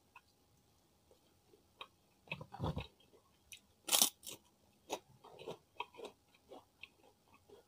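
Kerupuk cracker bitten and chewed, crunching: a cluster of crunches a little after two seconds in, the loudest sharp crunch about four seconds in, then a run of smaller crackling chews.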